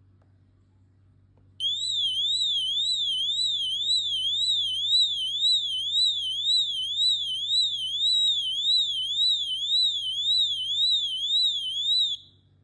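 Tuya Wi-Fi water leakage sensor's built-in alarm sounding, the alarm it gives when it detects water: a loud, high warbling tone sweeping up and down about twice a second. It starts about a second and a half in and cuts off suddenly near the end.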